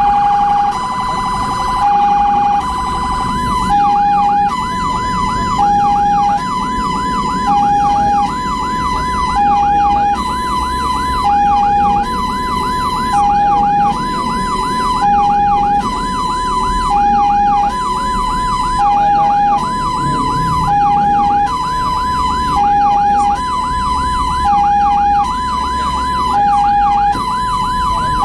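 Ambulance electronic siren sounding a two-tone hi-lo pattern. About three and a half seconds in it is joined by a fast rising-and-falling yelp, over engine and road rumble.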